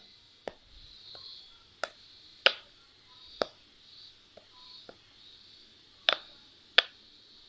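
Silicone bubble pop ball squeezed by hand, its bumps snapping in and out with about eight sharp, irregularly spaced clicking pops.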